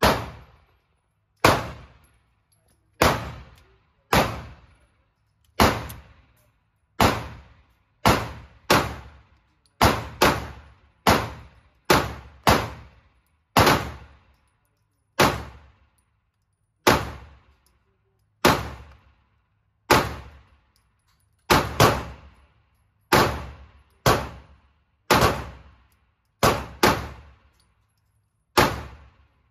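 A 9mm Smith & Wesson M&P pistol firing about two dozen shots, mostly about a second or more apart with some quick pairs, each shot echoing briefly off the walls of an indoor range. The pistol cycles through the string without a malfunction.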